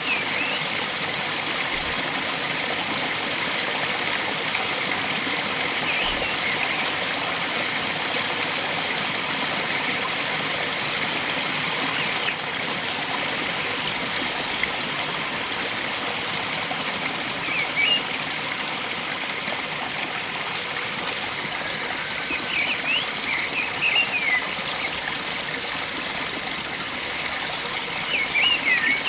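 Steady rushing of flowing water, with short bird chirps now and then, in small clusters toward the end.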